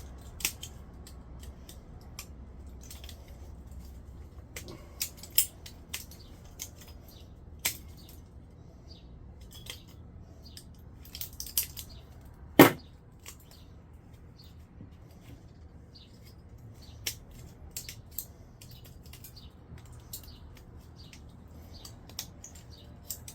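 Tin snips cutting the aluminium cooling fins off a microwave magnetron: scattered sharp snips and small metal clicks, with one louder metallic clank about halfway through.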